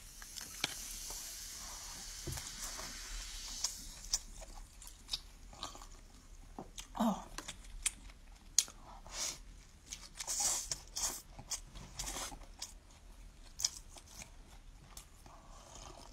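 A person biting into and chewing crunchy food, with irregular crisp crunches and mouth sounds; a faint steady hiss sits under the first few seconds.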